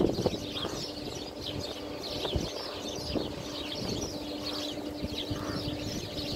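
Small birds chirping busily and continuously over a steady low hum from a distant railway locomotive.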